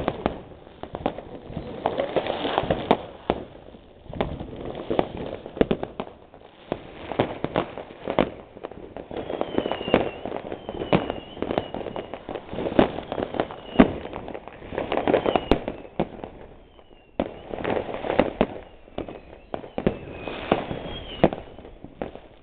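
New Year's fireworks: a dense, irregular run of firecracker bangs and crackling, with the whistles of rockets gliding in pitch several times from about nine seconds in.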